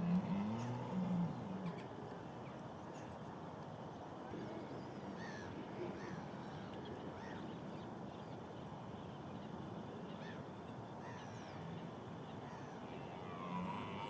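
Red deer stag giving its low, drawn-out rutting roar in the first second and a half, then roaring again near the end. Faint bird chirps sound over a steady background hiss.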